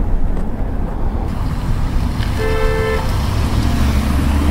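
A car horn sounds once about halfway through, a steady honk of a little under a second, over the low, continuous rumble of road traffic.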